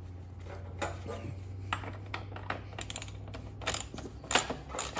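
Scattered metallic clicks and clinks of a hand wrench being fitted to and worked on a motorcycle's rear axle nut, coming at uneven intervals, over a steady low hum.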